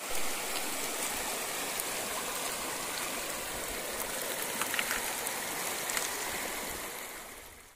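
Shallow river running over rounded stones and small rapids: a steady rushing and babbling of water that fades out near the end.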